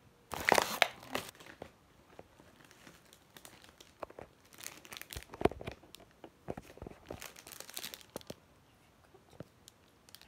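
A paper padded envelope and plastic packaging crinkling and rustling as items are pulled out by hand. It comes in several bursts, the loudest about half a second in, with more around the middle and near the eight-second mark.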